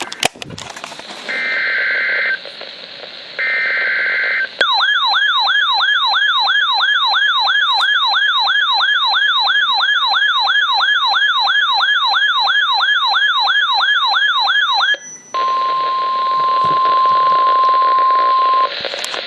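NOAA Weather Radio emergency alert sequence. First come two short buzzy EAS/SAME data bursts about a second apart. Then a weather alert radio's built-in alarm sounds a fast warbling siren, about three sweeps a second, for roughly ten seconds, followed by the steady 1050 Hz NOAA warning alert tone for about three and a half seconds, which signals that a warning message is about to be read. Radio hiss runs underneath.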